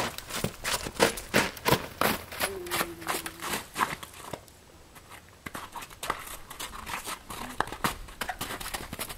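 Hoofbeats of a ridden horse trotting over crusty, icy snow and slush, a quick run of crunching strikes that go quieter for about a second in the middle and then resume.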